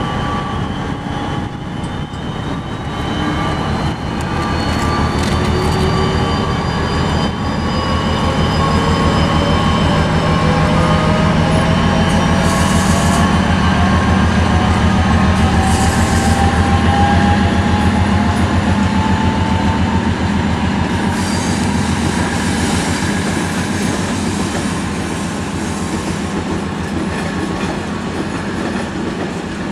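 SNCB Class 77 diesel-hydraulic locomotive hauling double-deck coaches past at low speed: a steady diesel throb with a whine that rises slowly in pitch. Two brief high wheel squeals come about halfway through.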